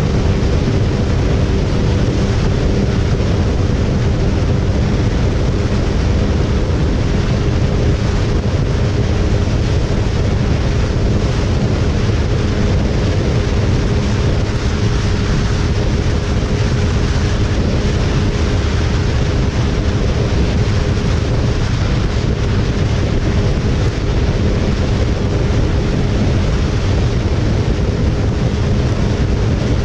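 Suzuki motorcycle engine droning steadily at cruising speed, under heavy wind noise rushing over the camera microphone.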